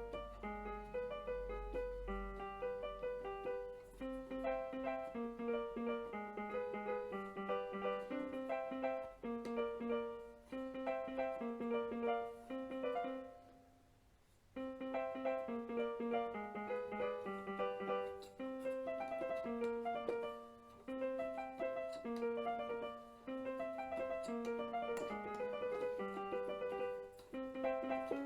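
DEK 610P 61-key electronic keyboard played in a piano voice through its built-in speakers: a repeating melody with notes sounded together, with a short pause about halfway through.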